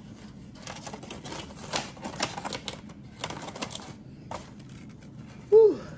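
Quick, irregular crackling and clicking as aluminium foil and a foam takeout container are handled and the clamshell lid is pressed shut. The crackling runs for about three seconds, then a single click follows.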